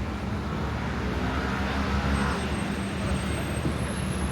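Steady low rumble of distant engine noise, with a broad swell that peaks about halfway through and then eases.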